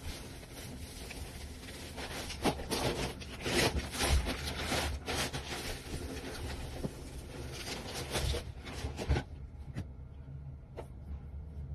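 Powdered detergent poured from a bag onto soap bars in a pan: a dense, crackly hiss of falling granules with many small ticks. It stops about nine seconds in, and a couple of single clicks follow.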